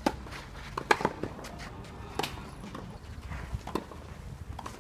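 Tennis ball being struck and bouncing on a clay court: several sharp thocks, about a second apart.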